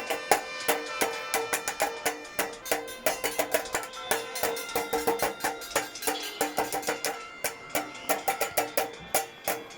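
Metal hoe blades and machetes being banged together in quick, irregular succession: many sharp clangs at once, with steady ringing tones underneath. This is the customary din made during a lunar eclipse to 'save' the moon.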